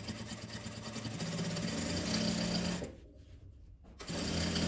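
Industrial straight-stitch sewing machine running steadily as it stitches through layered fabric and batting, stopping for about a second around three seconds in, then running again near the end.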